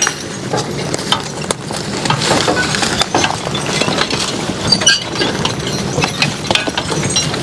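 Horse-drawn cart rattling and clanking over a rough road, with a steady clatter of small knocks and metal clinks from the jolting load.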